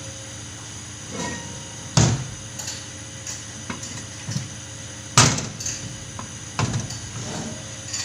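Irregular knocks and clinks of metal tools and parts being handled, about ten in all, the two loudest about two seconds and five seconds in, over a steady faint hum.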